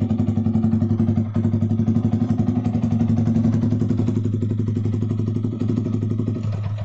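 Sport motorcycle idling through an aftermarket SC Project titanium-type replica slip-on muffler: a steady, even exhaust burble of about a dozen pulses a second, with no revving.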